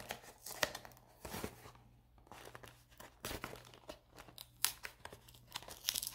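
Wrapper of a Topps 2020 Opening Day baseball card pack being torn and peeled open by hand, giving quiet, scattered crinkles and small tearing crackles.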